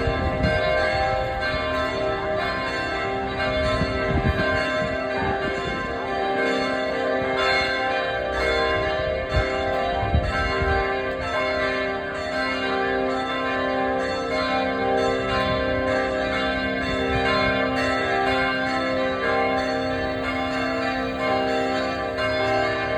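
Church bells ringing on and on, several bells struck one after another so that their tones overlap.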